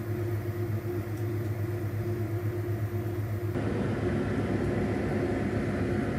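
Steady low mechanical hum, like a running motor or appliance; its tone shifts abruptly about three and a half seconds in.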